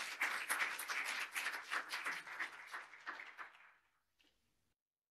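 Audience applauding, with many fast irregular claps that thin out and die away near the end.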